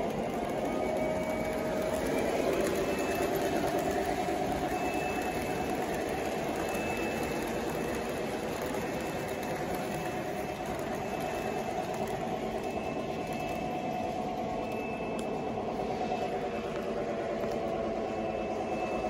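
O-gauge model train running steadily: MTH Western Maryland passenger cars roll over the track with a continuous wheel rumble, while the GP30 diesel locomotive's electronic sound system plays a steady diesel engine sound.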